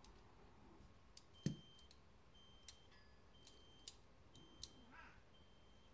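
Small titanium butterfly-style pocket knife being opened and closed by hand: a handful of light metallic clicks as its handles and latch knock together, some with a short high ring. The sharpest click comes about a second and a half in.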